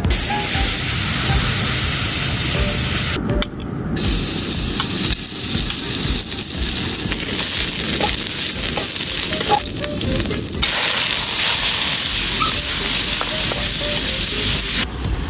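Meat and peppers sizzling loudly in a hot pan as they are stir-fried. The sizzle breaks off briefly about three seconds in, then resumes, and stops shortly before the end.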